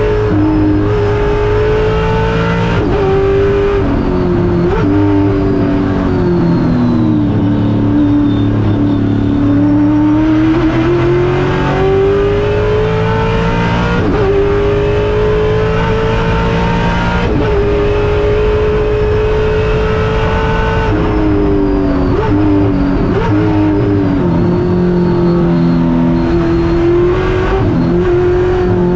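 A Corvette SGT race car's V8 heard from inside the cockpit at racing speed. The engine note climbs under hard acceleration and drops sharply at each gear change. Quick short blips around the downshifts under braking come about five seconds in, again in the middle, and twice near the end.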